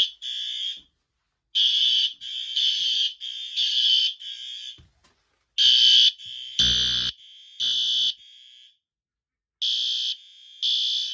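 Fire alarm horn strobe (SpectrAlert Advance type) sounding in short, high-pitched blasts about half a second long, grouped with brief pauses between groups. The system is in alarm, set off by a smoke detector test. About two-thirds of the way through there is a single brief knock.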